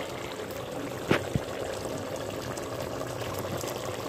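Marinated chicken boiling in its own liquid in an open aluminium pot, a steady bubbling hiss as the water the chicken released cooks off. Two sharp clicks a little after a second in.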